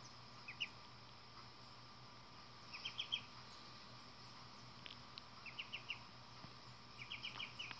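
Muscovy duckling peeping: several quick clusters of two to four short high chirps, over a steady faint background hum and hiss.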